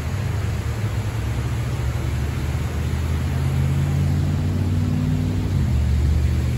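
A vehicle engine running steadily with a low rumble that shifts in pitch about five and a half seconds in, over a constant outdoor hiss.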